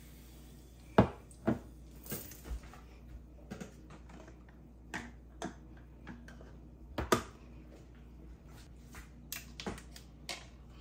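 Scattered clicks and knocks of tableware being set down on a stone countertop: a glass, a plate with a stuffed pepper, a plastic sippy cup lid pressed on and a plastic fork. The two loudest knocks come about a second in and about seven seconds in.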